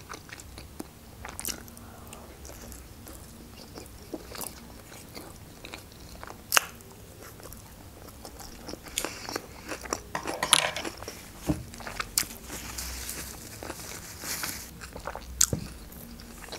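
A person chewing a mouthful of sushi roll: soft, wet mouth sounds with scattered sharp clicks and smacks every few seconds.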